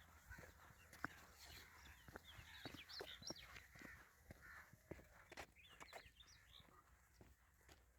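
Faint bird chirps, in short clusters of quick high notes, with scattered light clicks.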